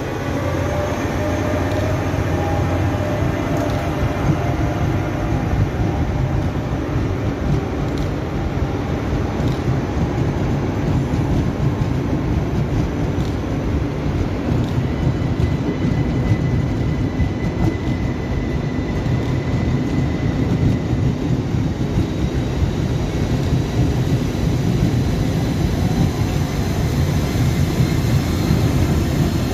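ÖBB passenger train of grey-and-red coaches rolling past on a nearby track: a loud, steady low rumble of wheels on rail.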